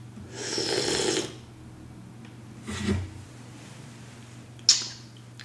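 A loud cupping slurp: coffee sucked hard off a spoon with a rush of air to spray it across the palate. A shorter breathy sound follows about three seconds in, and a single sharp click comes near the end.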